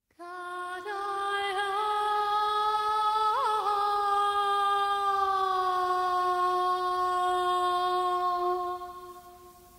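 A woman's voice singing one long, unaccompanied held note, decorated with a few quick ornamental turns early on, sagging slightly in pitch and fading out near the end.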